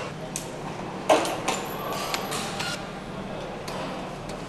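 Engine assembly-line workshop noise: scattered metal clicks and clanks over a steady low hum, with the loudest knock about a second in.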